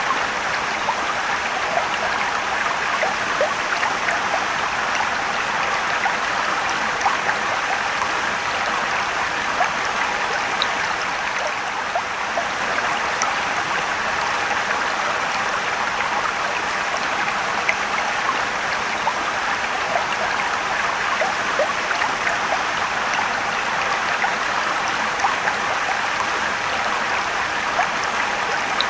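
Steady rushing and trickling of a mountain stream and waterfall, with small scattered splashes and drips over the even water noise.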